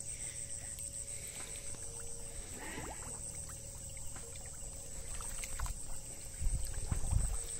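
Hands sloshing and splashing through shallow, muddy flood water while groping for fish, growing louder near the end, over a steady high trill of crickets.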